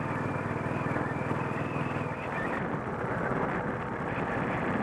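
Royal Enfield Bullet Electra 350's single-cylinder four-stroke engine running under way on a climb, picked up by a helmet camera. The steady engine note turns rougher and noisier about two seconds in.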